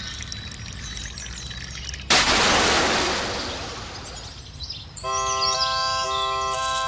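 A sudden loud rushing hiss about two seconds in, fading away over a couple of seconds. Then, from about five seconds in, a reedy organ-like chord pulsing on and off about once a second: a cartoon level crossing's warning signal.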